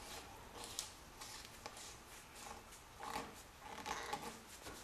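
Faint handling sounds of a metal screw cap being turned by hand onto a motorcycle's front brake fluid reservoir: light clicks and rubbing, a little louder about three and four seconds in.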